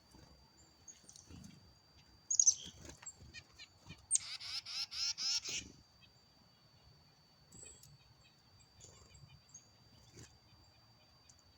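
Wren singing: a short high note about two seconds in, then a loud, rapid song of repeated falling phrases, about four a second, lasting a second and a half. A thin steady high tone runs underneath.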